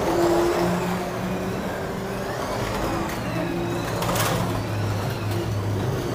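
Carrera Digital 1/24-scale slot cars running on the track, their small electric motors whining and rising and falling in pitch as the throttle goes on and off through the corners. There is a short sharp noise a little after four seconds in.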